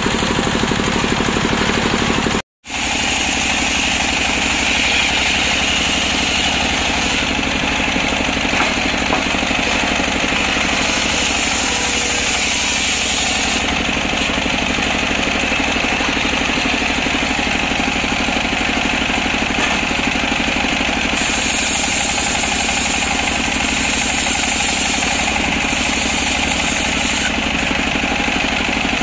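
Belt-driven circular sawmill running steadily, its stationary engine droning under the whine and rasp of the big blade sawing through waru logs. The sound drops out for an instant about two and a half seconds in.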